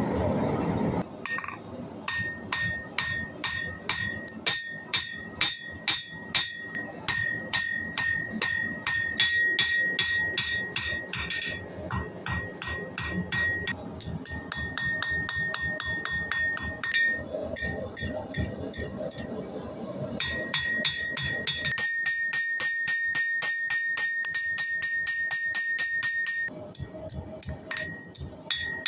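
Hammer blows on hot spring steel over an anvil, a fast, steady series of strikes, each with a clear high ring from the anvil. About two-thirds of the way through the blows come quicker and lighter, then they ease off near the end.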